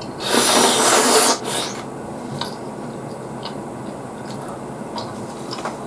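Close-miked mouth sounds of eating boiled whelk picked from its shell. There is a loud noisy burst lasting about a second, then quieter chewing with a few faint clicks.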